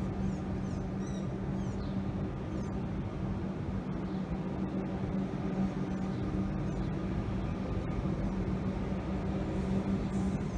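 X'Trapolis electric suburban train running slowly along the platform, a steady low electric hum over the rumble of the wheels on the rails. A few short high chirps sound in the first few seconds.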